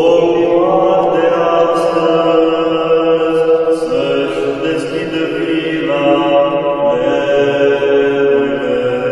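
Male voices singing a Romanian Christmas carol (colind) in harmony, with long held notes and the chord shifting a few times.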